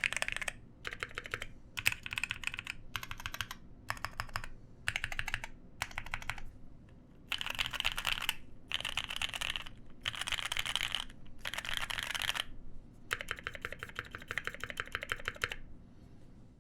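Iron165 FE custom mechanical keyboard, fitted with a liner, being typed on: lubed NovelKey Cream linear switches on a copper plate under Cherry KA1953 keycaps. The keys go in quick bursts with short pauses between them, and the bursts grow longer and denser about halfway through. The typing stops about a second before the end.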